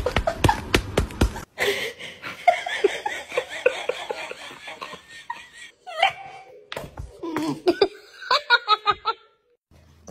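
People laughing off camera, in repeated short bursts of giggling and laughter that break off and start again several times.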